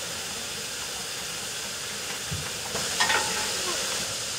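Steam hissing steadily from a standing Great Northern Railway N2 class 0-6-2T tank locomotive. The hiss grows louder about three seconds in, with a short sharp knock.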